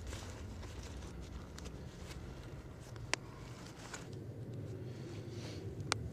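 Parachute nylon rustling and crumpling as it is stuffed by hand into a kit bag, over a low steady rumble. Two sharp clicks stand out, about three seconds and six seconds in.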